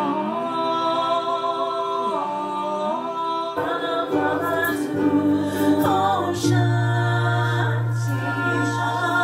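Singing in long held notes with smooth changes of pitch. About three and a half seconds in, a strummed acoustic instrument joins, and a few seconds later a steady low bass note.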